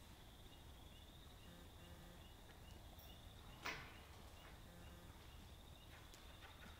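Near silence: faint room tone with a low hum and a faint, regularly repeating high chirp, broken by one sharp click about three and a half seconds in.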